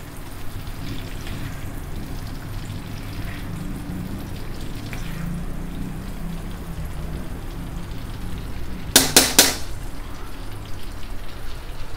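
Hot oil frying and bubbling in a wok as a wire mesh strainer scoops fried beef and vegetables out of it. About nine seconds in, three quick metal knocks as the strainer is tapped against a wok.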